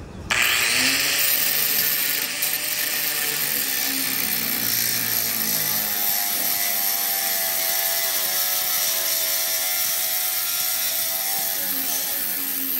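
Avid Power angle grinder with a thin cut-off wheel starting suddenly just after the beginning and cutting off excess aluminum plate: a steady motor whine with the hiss of the disc in the metal, its pitch wavering as the cut loads the motor.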